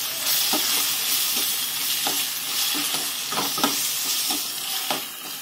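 Onion-tomato masala with ground spices sizzling steadily in a steel kadai while a metal ladle stirs it, scraping and knocking against the pan about once or twice a second.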